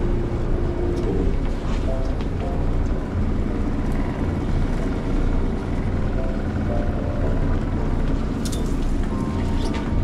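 Sportfishing boat's engine running steadily, a low rumble, with faint background music.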